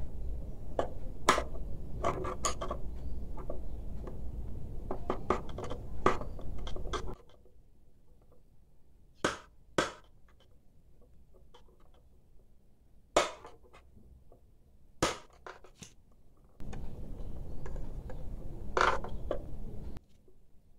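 Sharp clicks and knocks from a blender's drive coupling being tapped tight onto its motor shaft, with a screwdriver jammed through the coupling. The taps come thick and fast for the first several seconds, then singly, a few seconds apart.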